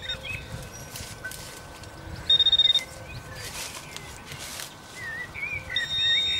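Minelab CTX 3030 metal detector beeping: a short, loud, pulsing high tone about two seconds in, then a steady high tone near the end as it signals a buried metal target. Birds chirp in the background.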